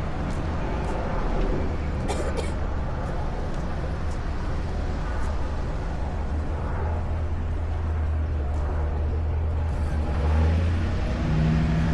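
Steady low outdoor rumble with faint background voices, and a brief cluster of sharp clicks a little over two seconds in.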